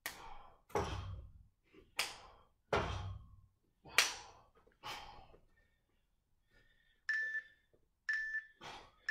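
Explosive single-arm push-offs against a steel rack bar: about six sharp slapping thuds roughly a second apart as the hands strike and push off the bar. Near the end an interval timer gives three short countdown beeps a second apart.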